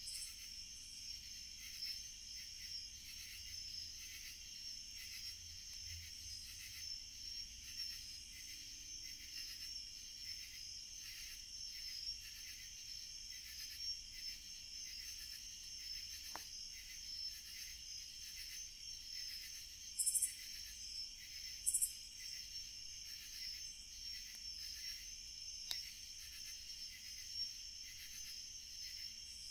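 Night chorus of crickets and other insects: steady, high-pitched pulsing trills. About two-thirds of the way through come two brief, louder high buzzes a second and a half apart, and a couple of faint pops come from a dying campfire.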